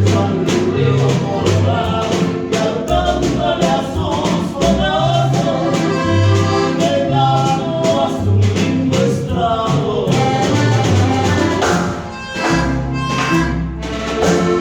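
Recorded band music with a steady beat, bass notes and drums under a sustained melody, running into the closing bars of the song.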